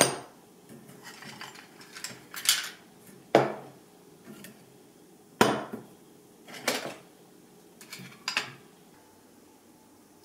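Ceramic teacups and a saucer being stacked and set down on a wooden table: about six separate clinks and knocks, the loudest right at the start as one cup is nested into another.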